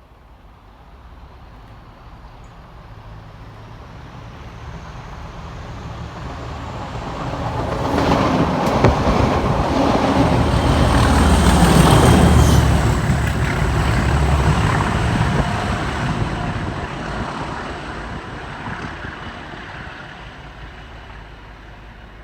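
A Class 37 diesel locomotive's English Electric V12 engine growls as it approaches, passes at speed and recedes, together with the rumble of wheels on rail. The sound swells to its loudest about halfway through, with a few sharp clicks just before, then fades away.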